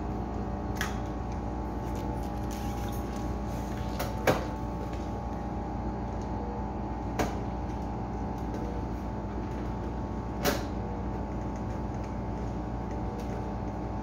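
Steady machine hum of a running display refrigerator, with three sharp metallic knocks a few seconds apart, the first the loudest, as a screwdriver works on the sheet-metal control box cover under the cabinet.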